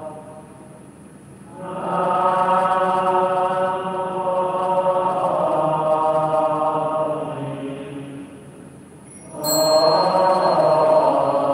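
Slow Buddhist devotional chanting: long drawn-out sung notes that swell and fade in phrases, rising again about two seconds in and near the end. About nine and a half seconds in comes a short sharp strike with a brief high ring.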